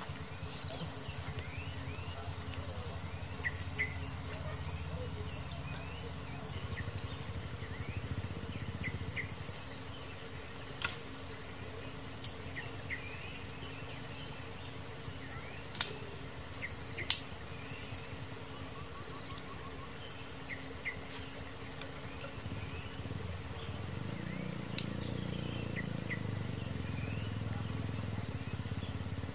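Birds chirping, with many short calls throughout, over a steady low rumble that grows a little stronger near the end. A few sharp snaps cut through, the loudest two close together about two-thirds of the way in.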